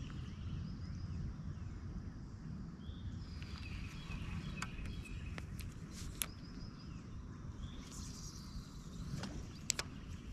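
Birds chirping in the background over a steady low outdoor rumble, with a few sharp clicks, the loudest near the end.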